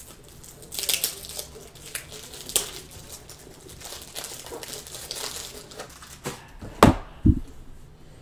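Sealed trading-card pack wrappers crinkling and rustling as the packs are handled, with two sharp thumps on the table near the end.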